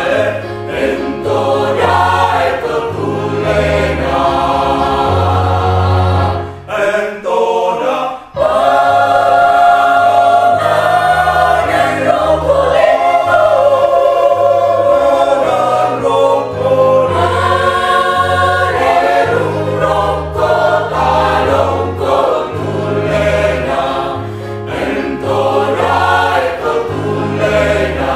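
Mixed choir of women's and men's voices singing together in harmony. About a quarter of the way in the singing briefly drops away, then comes back in fuller and louder.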